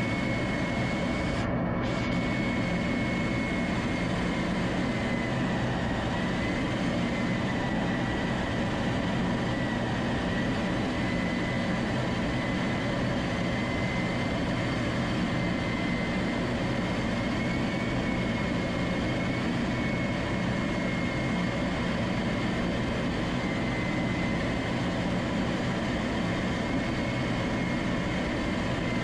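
Steady engine and wind noise of an aircraft in flight, heard from on board, with a thin high whine that wavers slightly in pitch over a low steady hum.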